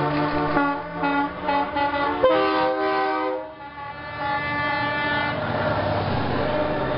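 Semi-truck air horns blowing chords: a run of short blasts, then a long loud blast a little over two seconds in that dies away, then horns sounding steadily again.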